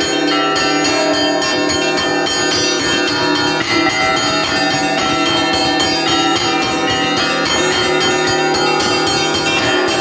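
Orthodox church bells rung by hand from clapper ropes, heard up close in the belfry. Several bells are struck in a quick, continuous rhythm, and their tones ring on and overlap over the steady hum of a larger bell.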